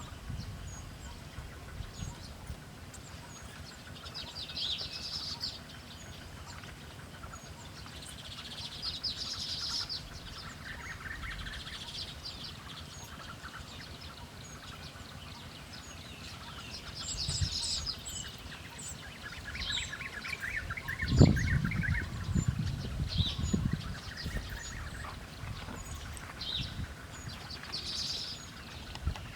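Small birds giving short, high chattering calls every few seconds, with a longer rapid trill just before two-thirds of the way in. A low rumble about two-thirds in is the loudest sound.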